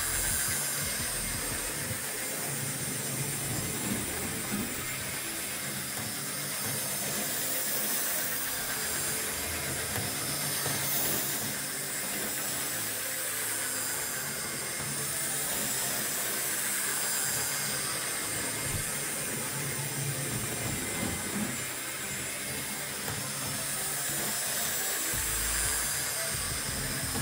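Two Hornby 00-gauge model steam locomotives running on track: the steady whirr of their small electric motors with the hiss and rattle of wheels on rails.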